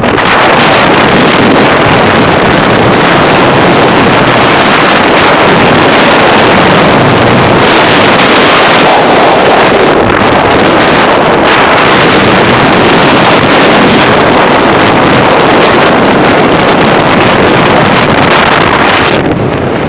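Loud, steady rush of wind buffeting a phone microphone on a moving motorcycle, mixed with the bike's engine and road noise. It eases slightly near the end.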